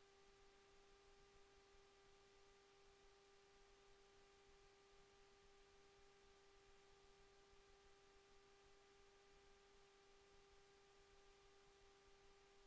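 Near silence: room tone with a faint steady hum at one pitch, its overtones above it, unchanging throughout.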